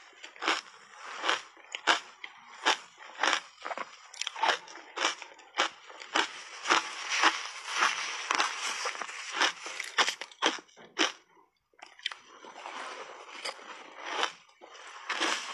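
Crunchy shaved ice coated in matcha tea powder being bitten and chewed in big mouthfuls, close to the microphone: a run of sharp crunches, about two a second, with a short pause about three-quarters of the way through.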